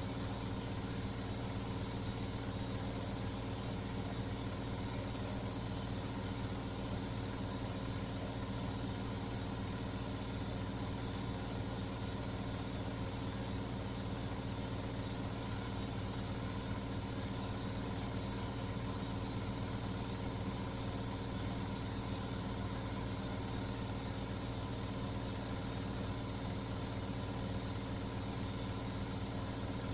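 Beko washing machine on its spin-and-drain cycle, drum spinning at a constant speed: a steady mechanical hum with several fixed tones that holds unchanged in pitch and loudness.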